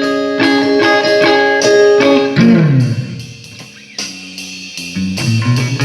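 Guitar played through amplifier speakers: sharply picked, ringing notes and chords, then a quick run down into low notes about two and a half seconds in, a softer stretch, and more low notes near the end.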